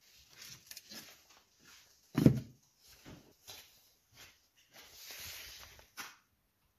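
Handling noises as wooden-cased Ford Model T trembler coils are moved about and set on a wooden workbench: scattered knocks and rustles, a heavy thump about two seconds in, a longer rustle later, and a sharp clack near the end.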